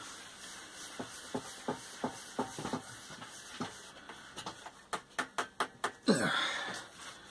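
Light clicks and knocks as a log is shifted and clamped in the jaws of a Black & Decker Workmate. They come singly at first, then about seven in quick succession at roughly three a second, followed by a brief sound of a man's voice near the end.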